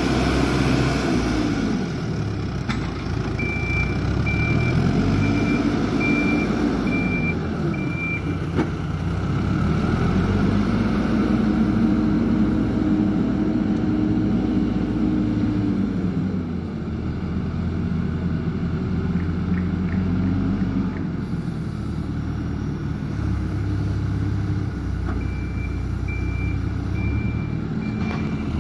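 A heavy vehicle's engine revving up and down in long swells, with a backup alarm beeping in two spells.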